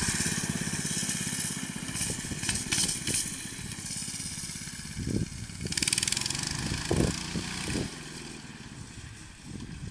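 Vintage go-kart's small engine running as the kart drives off across the grass, loud at first and fading steadily as it moves away, with a few brief rushes of noise over it.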